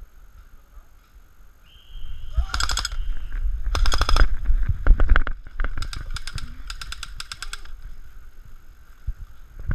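Airsoft guns firing rapid bursts, four or five strings of fast, evenly spaced shots over a few seconds, with low rumble from movement or wind on the head-mounted microphone.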